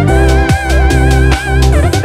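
Background music: an electronic track with a beat about twice a second, a deep sustained bass and a wavering held lead melody.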